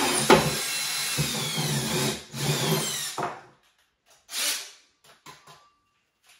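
Cordless drill driving a hole saw through the floor of a vanity cabinet, with a sharp knock just after the start. The motor winds down in a falling whine about two to three seconds in and stops. A short burst of sound follows about a second later, then a few light knocks.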